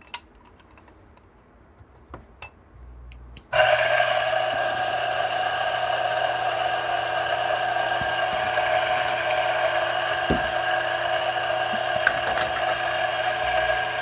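Espresso machine brewing a shot: a few clicks as the portafilter is locked into the group head, then about three and a half seconds in the pump starts and runs with a steady buzz.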